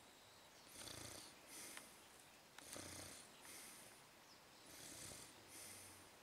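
A person snoring faintly in sleep: three slow breaths about two seconds apart, each a low rasping snore followed by a shorter breathy hiss.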